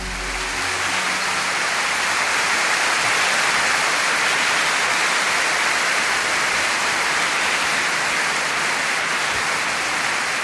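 A steady, even rushing hiss like heavy rain or static, swelling up over about the first second and then holding level.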